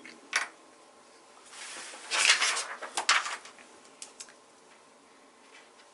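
Paper pattern sheet, acrylic quilting ruler and fabric being moved around on a cutting mat: a sharp click about a third of a second in, a papery rustle and swish around two seconds, then a few light taps.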